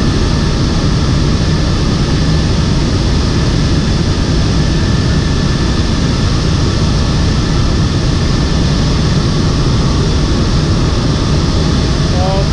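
Loud, steady engine and airflow noise of a military transport aircraft in flight, heard from inside its cargo hold.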